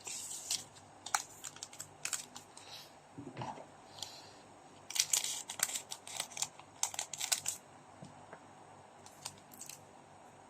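A trading-card pack's wrapper being crinkled and torn open by hand, with sharp crackles in bunches that are busiest from about five to seven and a half seconds in, then thin out.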